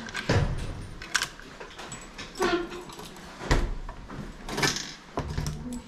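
A coin-operated locker lock and locker door being handled: about six separate clicks and knocks as the lock and its key are worked and the door is moved.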